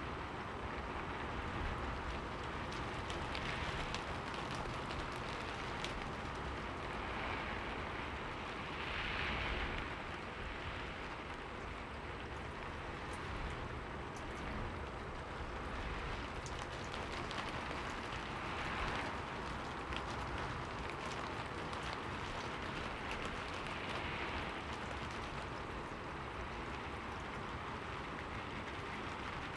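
Steady rain, with drops ticking on a window pane over a continuous hiss, swelling slightly now and then.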